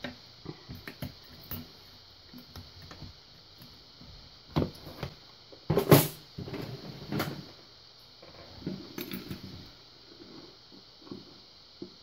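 Small metal tools and a lock cylinder being handled: scattered light clicks and taps, with a louder clack about six seconds in.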